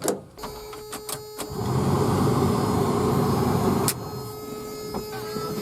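Sounds from the Toyota pickup: a few clicks, then a steady tone with a loud rumbling noise for a couple of seconds that cuts off with a click, followed by a quieter steady sound.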